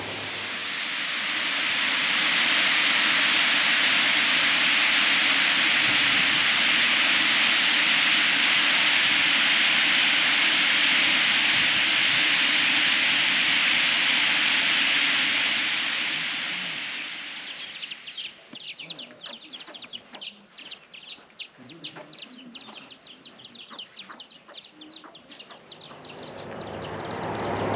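A steady rush of water that fades out after about sixteen seconds. It gives way to quick, high chirping of birds that goes on until the end.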